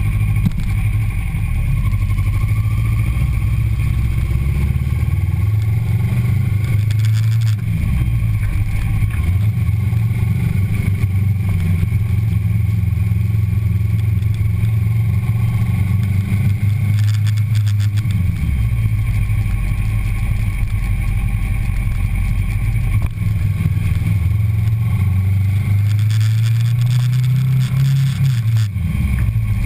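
2009 Kawasaki Ninja 650R's parallel-twin engine running steadily as the bike rides along, heard close up from the fuel tank. The engine note changes a few times, rising near the end and then dropping off suddenly.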